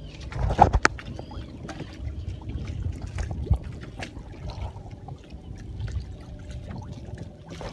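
Small waves lapping and trickling against a kayak's plastic hull, with scattered knocks and bumps of gear being handled; the loudest knock comes just under a second in.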